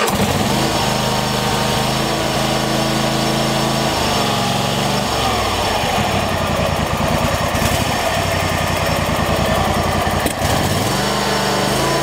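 Lawn tractor's Kohler Courage two-cylinder engine catching at once on full choke, now that the choke cable is adjusted, and running steadily. Its speed shifts about four seconds in, and again after a brief dip near ten seconds, as the throttle and choke lever is moved.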